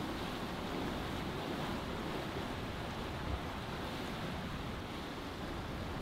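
Sea water rushing and washing along the hull of a sailboat under way, with wind over the microphone: a steady rushing noise.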